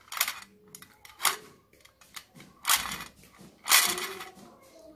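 Handling of an empty metal can and a bent-wire crank being fitted through holes in its sides: a few short metallic scrapes and rustles about a second apart, the longest near the end.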